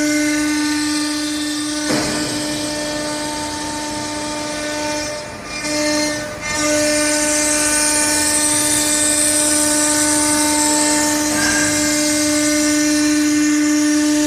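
CNC router spindle running at a steady high whine as its bit carves letters into a wooden board. The whine drops out briefly twice, about five to six and a half seconds in.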